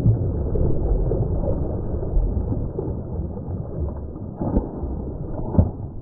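Muffled rumbling and sloshing of creek water heard through an action camera's microphone that has gone into the water, with all the high tones cut off. A couple of dull knocks come near the end.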